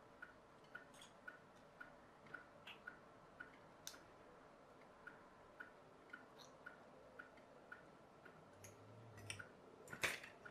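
Faint clock ticking evenly, about two ticks a second. Over it come a few light irregular clicks of tinplate and pliers being handled, and a sharper click near the end.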